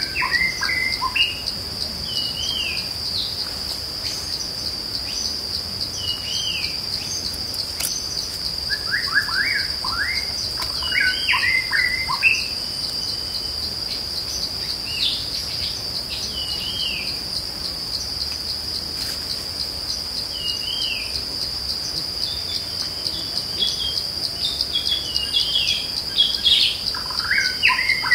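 Steady high-pitched insect drone, with birds chirping in short scattered calls over it, busiest about ten seconds in and again near the end.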